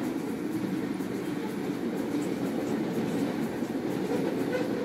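Freight train of tank cars and covered hopper cars rolling past, a steady rumble of wheels on the rails.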